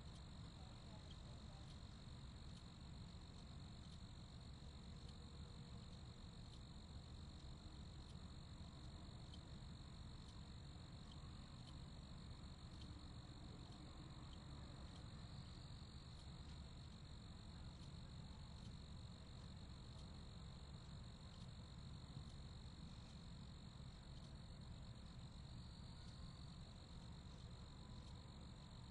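Crickets chirping in a steady, unbroken night chorus, a constant high-pitched trill, with a low rumble underneath.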